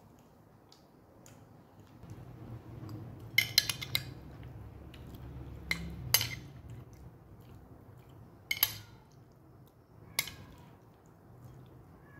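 A metal spoon clinks and scrapes against a glass baking dish and a ceramic bowl as pieces of cooked chicken are scooped and served. There is a quick run of clinks about three and a half seconds in, then single clinks every couple of seconds.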